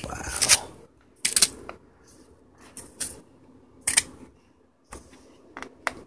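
Deep fresh snow crunching as a bare hand pushes and presses into it: a longer crunch at the start, then short irregular crunches every half second to a second.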